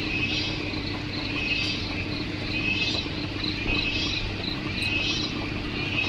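Cicadas calling in a loud, shrill chorus that swells in pulses about once a second, with quicker rapid pulses between the swells, over a low steady hum.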